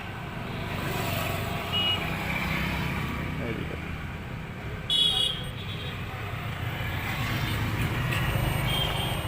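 Steady low rumble of vehicle and traffic noise, with short high-pitched beeps about two seconds in and again about five seconds in, the second the loudest.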